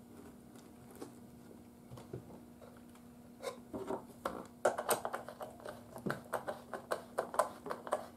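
Light metallic clicks and clinks from handling small screws while fitting the last screw of a radio's back panel. It is faint at first, then the clicks come quickly, about four a second, from about halfway through.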